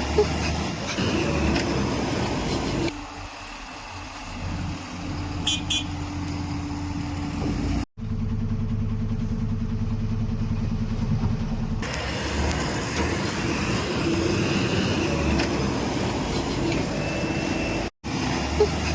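Heavy diesel engines of construction vehicles running, in several short stretches joined by abrupt cuts, with a quieter stretch in the first half.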